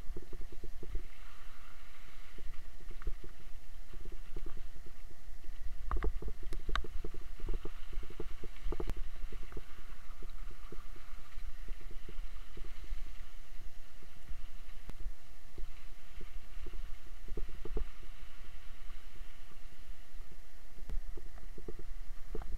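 Mountain bike rolling over wet gravel and through shallow water, heard from a camera riding on the bike: a steady low rumble of vibration with frequent rattling knocks from the rough ground.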